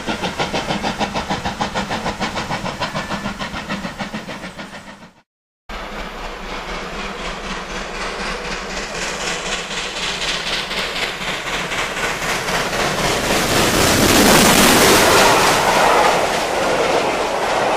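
Stanier Black 5 steam locomotive working, its exhaust beats coming fast and even and fading away. After a brief cut, the train's sound builds steadily, with hiss and rail noise, and is loudest a few seconds before the end.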